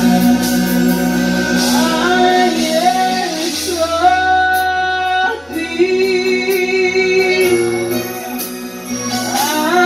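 Worship band playing with female and male voices singing held, sliding notes over steady bass and accompaniment.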